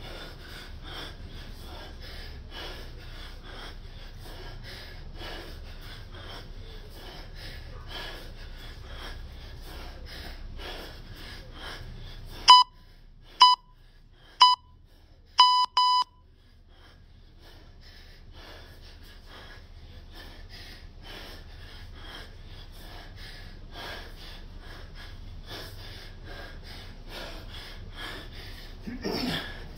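Hard, rhythmic breathing of a man doing kettlebell snatches at a steady pace. About halfway, an electronic interval timer gives a countdown: three short beeps a second apart and then a longer one. A louder exhale comes near the end.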